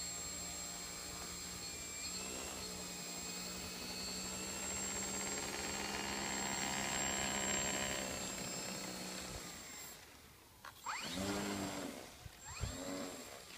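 Electric motor and propeller of a foam-board RC Storch model plane running at a steady pitch as it taxis, throttled up about two seconds in and cut off near the end. Two short throttle blips follow, each rising and falling in pitch.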